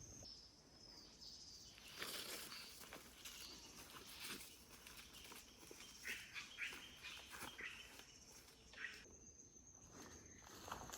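Faint rainforest ambience: a thin, steady high insect buzz that stops just after the start and comes back about nine seconds in, with a few short, faint bird chirps in between.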